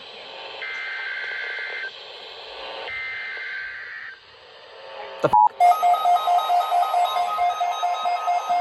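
NOAA Weather Radio's SAME digital alert header: two-tone data bursts, each about a second long and a second apart, with the last ending about four seconds in. About five and a half seconds in, after a brief click, a fast pulsing electronic beeping begins.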